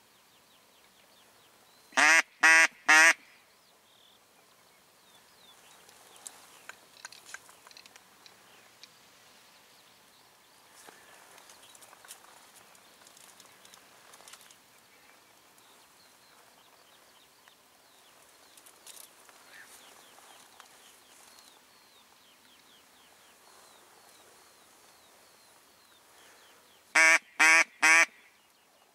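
Hen-mallard quacks, three in quick succession about two seconds in and the same three again near the end, loud and close, calling to draw in a mallard drake. Faint birdsong in between.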